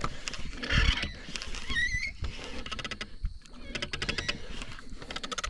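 Baitcasting fishing reel ticking in quick runs of clicks while a hooked barramundi is being fought. There is a thump about a second in, and a bird chirps once about two seconds in.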